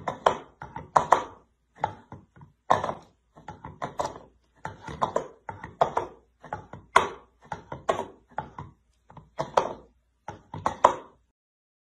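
Orange plastic bowl knocking and clattering on a hard floor as a cat paws and flips it: a run of about twenty irregular hollow thunks that stops about a second before the end.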